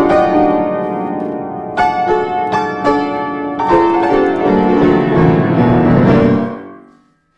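Solo piano playing chords and a melody, with a few firmly struck notes in the middle. The last chord is held and fades away to silence near the end.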